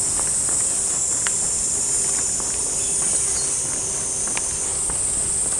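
A chorus of cicadas shrilling steadily in the trees, a continuous high-pitched buzz, with a few faint ticks underneath.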